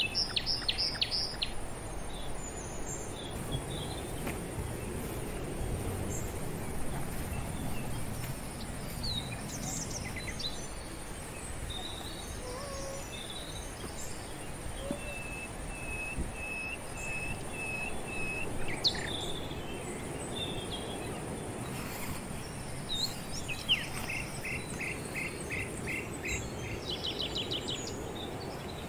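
Birds calling around a lake, with several quick runs of short repeated chirps, over a steady high-pitched insect drone and a low background hiss of open air.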